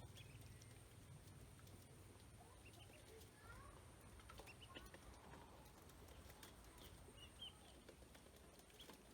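Ducklings peeping faintly: many short, scattered high chirps.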